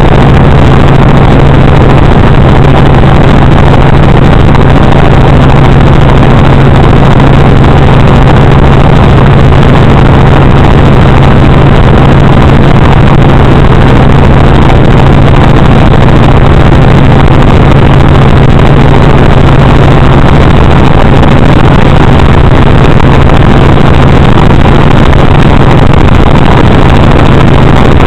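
Helicopter in steady flight heard from inside the cabin: a very loud, unchanging drone of engine and rotor with a strong low hum.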